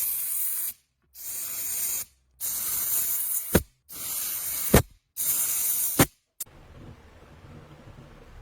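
Aerosol spray can sprayed in five bursts of about a second each with short pauses between, several ending in a sharp click as the nozzle is released. Near the end the spraying stops, leaving a faint background hiss.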